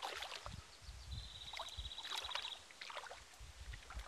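Faint splashing and lapping of shallow lake water around someone standing in it, with low wind rumble on the microphone. A high, rapid trill runs for about a second and a half partway through.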